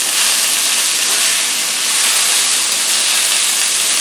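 Matchstick strips of summer squash sizzling steadily in hot olive oil in a frying pan.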